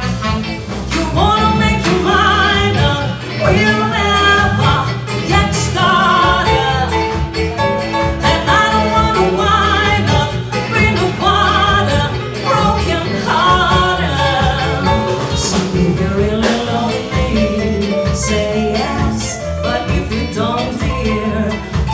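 A singer sings over a live jazz band, with a steady bass line underneath.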